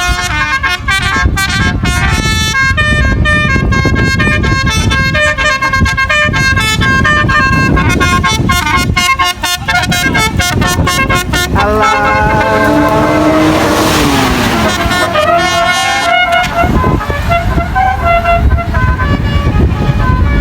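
Tour bus telolet horns, multi-tone air horns, playing quick tune-like runs of notes over the rumble of bus engines. About twelve seconds in, a chord of horn tones slides down in pitch for a couple of seconds.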